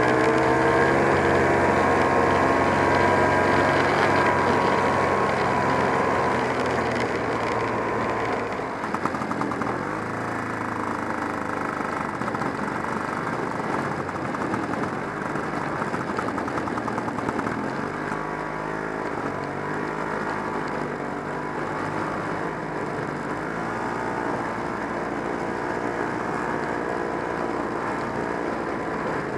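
1969 Polaris Mustang snowmobile's JLO two-stroke engine running while the sled travels, its pitch rising and falling with speed. The level drops somewhat about eight or nine seconds in, and the engine note shifts again a little past halfway.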